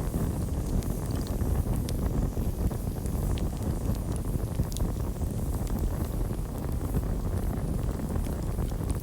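Campfire burning: a steady low roar of flames with scattered sharp crackles and pops from the wood.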